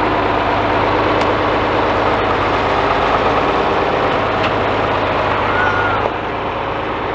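John Deere tractor's diesel engine running steadily and loudly close by as the tractor creeps forward and its front tyre rolls over and squashes a plastic pickle jar.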